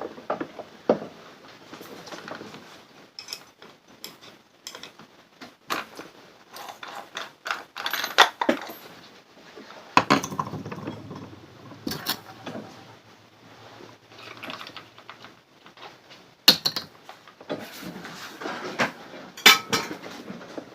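Scattered metal clinks, taps and rattles of an angle grinder and its parts being handled while its disc is swapped for a cutting wheel.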